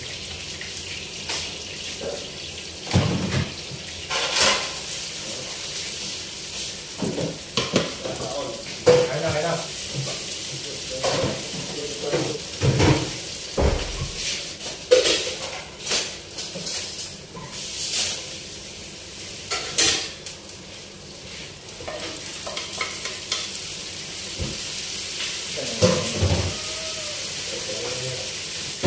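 Food sizzling in a frying pan on a gas burner, with a wooden spatula scraping and knocking against the pan as it is stirred, in irregular strokes.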